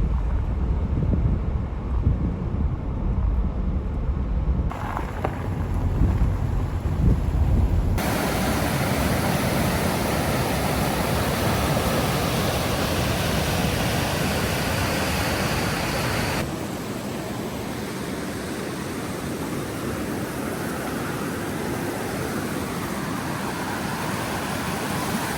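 Wind buffeting the microphone with a low rumble, then from about eight seconds in a steady, even rushing noise that turns a little quieter about halfway through.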